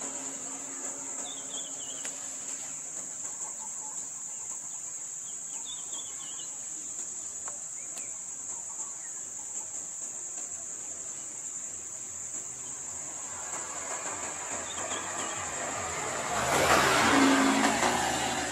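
Steady high-pitched insect drone, over which a car approaches and passes close by, loudest about three-quarters of the way through.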